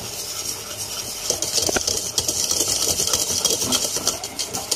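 Wire whisk beating mashed potatoes in a stainless steel pot, its wires scraping and rattling against the pot in quick, continuous strokes.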